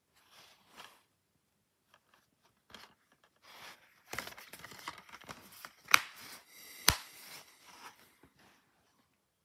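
Plastic DVD keep case being handled and snapped shut: rustling and scraping of the plastic case and its cover sleeve, with two sharp clicks a little under a second apart past the middle.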